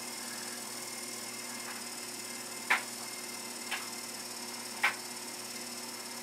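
Small 12 V DC gear motor running steadily as it turns a variable capacitor through plastic gears, a constant hum with a few sharp ticks about a second apart in the middle.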